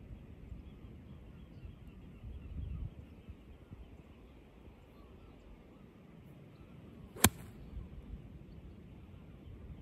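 An eight iron striking a golf ball on a smooth approach swing: one sharp, short click about seven seconds in.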